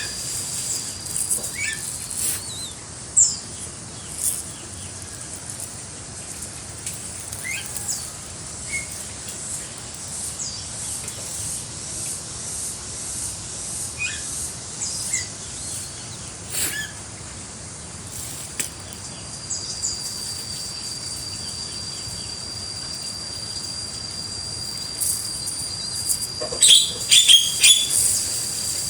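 Scattered short bird chirps over a steady high-pitched whine, with a few sharp clicks and flutters that bunch together near the end.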